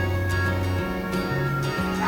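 Soft background music with sustained notes, a slow-moving bass line and light, evenly spaced ticks.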